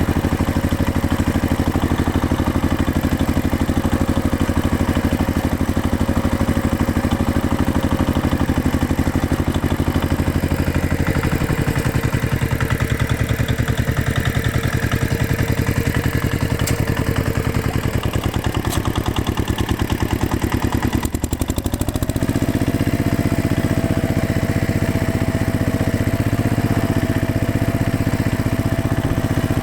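Tractor engine running steadily with an even, rapid firing beat. Its note shifts about a third of the way in, dips briefly, then settles at a slightly higher pitch for the rest.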